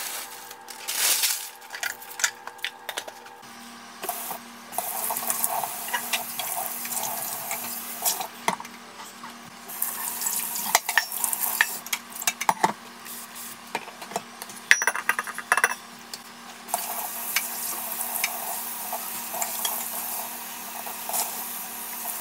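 Dishes and cutlery clinking and clattering, with many scattered knocks, over a steady low hum that starts a few seconds in.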